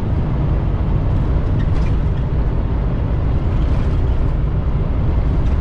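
Steady low rumble inside a semi-truck's cab on the highway: the diesel engine's drone mixed with road noise, unbroken throughout.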